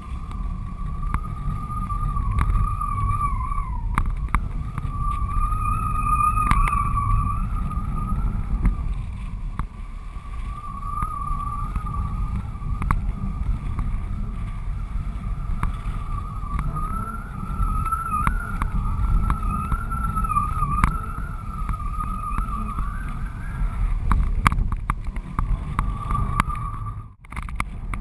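Wind buffeting a GoPro mounted on a kitesurfing kite's strut in flight: a steady low rumble with a thin, wavering whistle that rises and falls in pitch and comes and goes.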